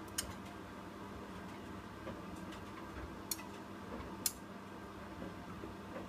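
Hoover WDYN 11746 PG8 washer-dryer on a low-temperature drying cycle: the drum tumbling a load of shirts and sweaters over a steady motor hum, with a few sharp, irregular ticks as the tumbling load knocks against the drum.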